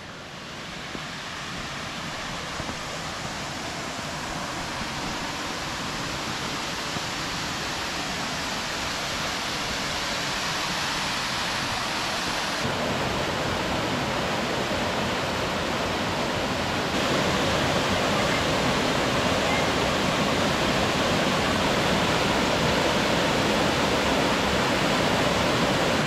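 Gankutsu Falls, a waterfall, rushing steadily into its pool. The rush grows louder throughout and shifts abruptly in tone twice, about halfway through and about two-thirds of the way in.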